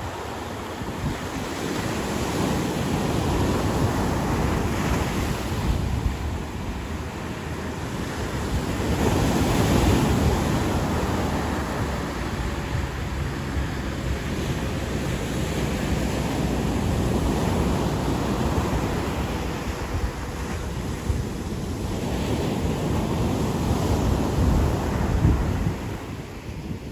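Ocean surf breaking and washing up on a beach, the noise swelling and easing as each set of waves comes in, loudest about a third of the way in and again near the end, with wind buffeting the microphone.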